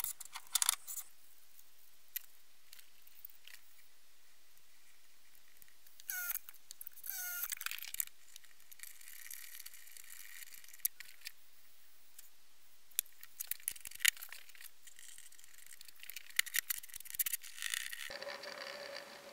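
Hand assembly of a small cast-iron machine vice: scattered light metal clicks, taps and scrapes as its parts and screws are fitted, with two short squeaks falling in pitch about six and seven seconds in. Near the end the clicking turns into a denser rattle as the vice's lead screw is wound by its handle.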